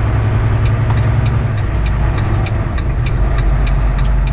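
Semi truck's engine and road noise heard inside the cab while driving at highway speed, a steady low drone. A quick, regular light ticking, about four ticks a second, starts about half a second in.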